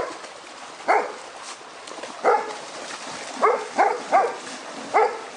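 A dog barking repeatedly, about seven short barks, some coming close together in a quick run.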